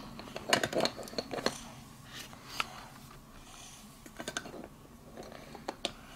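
Small plastic toy figures and doll's-house furniture being handled and set down, giving scattered light clicks and taps, several in the first second and a few single ones later.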